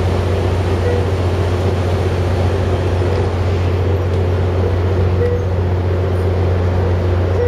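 Steady, loud diesel drone from a stopped Amtrak California passenger train's locomotive, running at a constant speed. A few short beeps sound over it, about a second in and near the end.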